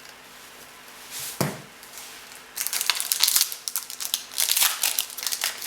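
A trading-card pack wrapper being torn open and crinkled by hand, a short swish about a second in, then dense rapid crackling from about halfway through.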